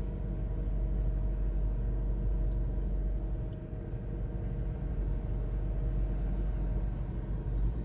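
Engine of a small construction machine running steadily, a low rumble with a constant hum, as it gets ready to lift a ramp rail.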